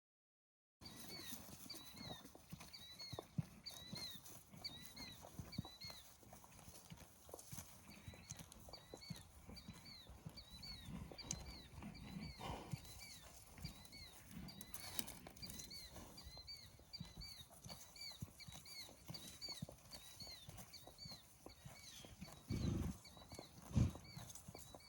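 Horses moving about loose outdoors: scattered hoof steps and small knocks, with two louder low sounds near the end. A high, repeated chirp goes on steadily in the background about twice a second. The recording starts about a second in.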